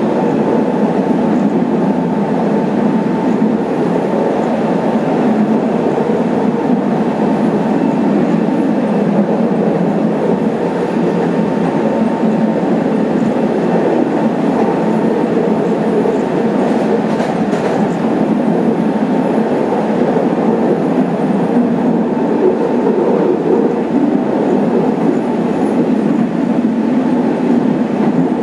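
Tram running along its track, heard from inside the car: a steady rolling and running noise with no change in pace.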